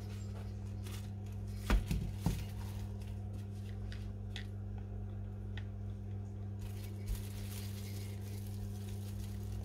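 Wooden rolling pin handled over dough wrapped in plastic film: two knocks about two seconds in and faint crinkling and rustling of the plastic wrap, over a steady low hum.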